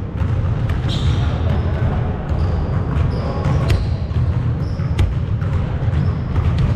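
A basketball bouncing on a hardwood gym floor, irregular sharp thuds about a second or so apart rather than a steady dribble, with a few short high squeaks, over a steady low rumble.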